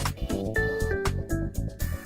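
Background music with a steady beat: drums, bass and short keyboard or guitar notes.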